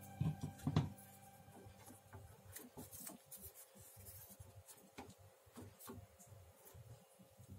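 A wooden ice-cream stick scraping and tapping around mini martabak cakes in their metal mould pan, twisting them loose to lift them out: a couple of louder knocks near the start, then a run of faint, irregular scratchy scrapes.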